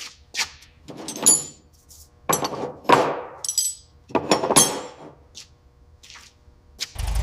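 Four loud, sudden knocks and scrapes of work on metal, with a metallic clink in each and a short ringing tail. A steady low rumble, like an engine running, starts near the end.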